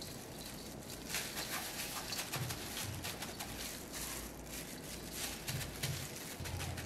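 Coarse salt being sprinkled and patted by gloved hands onto a whole fish in a stainless steel bowl: a light, irregular patter of grains with a few soft, low thuds from the patting.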